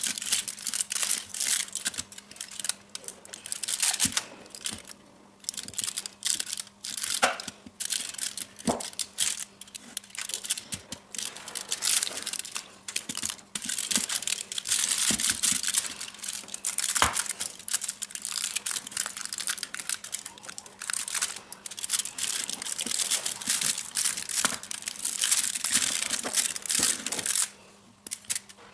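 Knife pressed down through a hardened rocky road slab in a foil-lined tray: repeated crunching, crackling strokes as it cuts through set chocolate and peanuts, with the foil lining crinkling and a few sharp clicks.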